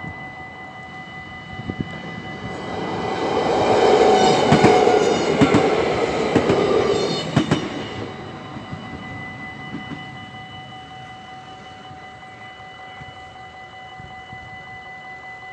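A train passing over a level crossing, its wheels clacking over the rail joints, loudest about four to seven seconds in and fading away by about ten seconds. The crossing's warning bell rings steadily throughout and stops near the end as the barriers lift.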